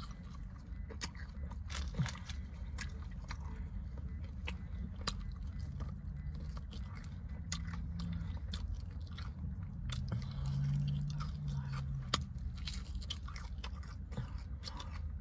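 Close-up chewing and biting of fried chicken wings, with many short wet mouth clicks and smacks. A steady low rumble lies underneath, and two short low hums come partway through.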